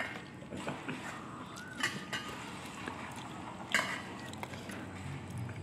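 Metal spoon clinking and scraping against a plastic bowl while instant noodles and rice in broth are stirred together, with a few sharper clinks about two seconds apart.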